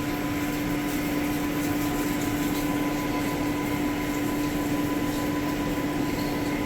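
CNC machine running with its coolant pump on: a steady hum with a constant tone, and no sudden sounds. The coolant is flowing only weakly.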